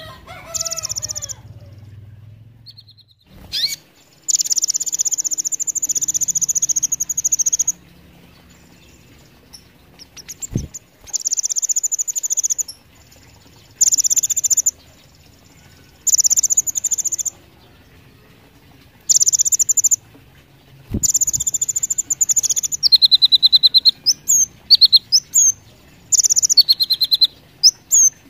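Van Hasselt's sunbird (kolibri ninja) singing: repeated high, very rapid buzzy trills, each one to three seconds long with pauses between. Toward the end come shorter phrases sliding down in pitch and quick chirps. Two sharp taps sound about ten and twenty-one seconds in.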